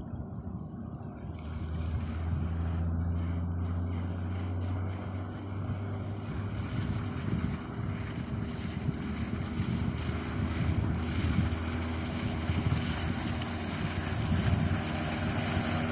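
Hidea 9.9 hp outboard motor running steadily with a boat under way, with wind on the microphone and a rush of water and air that grows a little louder toward the end.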